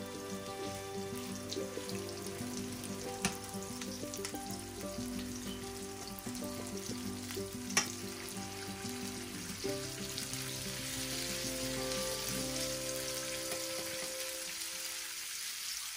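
Salmon pieces frying in hot oil in a non-stick pan, a steady sizzle that grows a little louder in the second half. Metal tongs click sharply against the pan twice, about 3 and 8 seconds in, as the pieces are turned.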